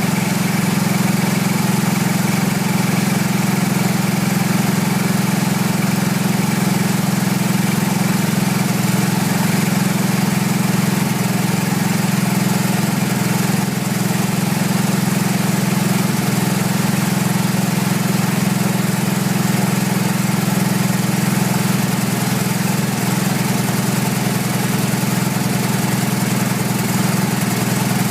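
Engine of a wood gas generator set running at a steady speed.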